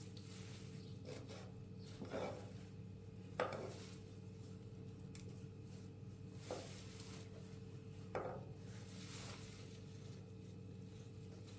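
A knife chopping chicory on a cutting surface: about five separate chops at irregular intervals, over a faint steady hum.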